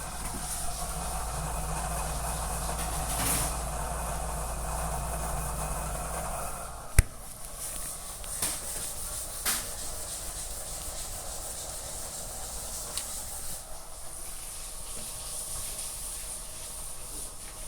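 Fukushima under-counter commercial refrigerator running with a steady hum and whir; the interior fan's noise is loud enough to be unsuitable for a quiet shop. About seven seconds in there is a sharp click and the low hum stops, leaving a fainter steady hiss with a few light clicks.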